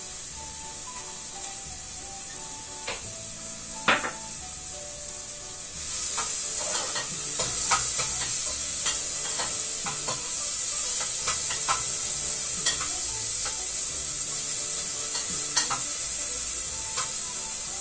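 Chopped onion frying in butter in an aluminium pan: a steady sizzle that grows louder about six seconds in, with light scrapes and ticks as the onion is stirred around the pan.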